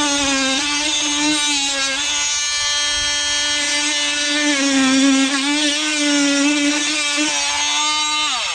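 Oscillating multi-tool cutting into plasterboard, its motor giving a steady high buzz whose pitch wavers slightly as the blade works. Near the end the pitch falls as the tool winds down.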